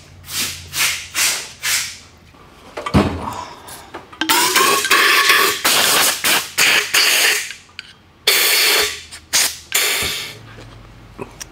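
A KTM WP shock reservoir being cleaned of leftover oil and water: a run of short hissing blasts, a knock about three seconds in, one long hiss of about three and a half seconds with a wavering pitch, then more short blasts.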